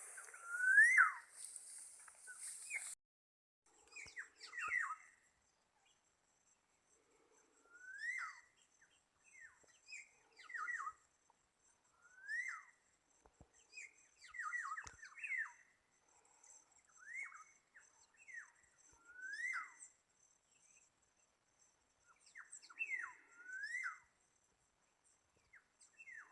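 Black-naped orioles (kepodang) calling: short whistled notes that sweep up or drop, in groups every second or two, from a decoy oriole used to lure wild ones. A rustling hiss runs through the first few seconds.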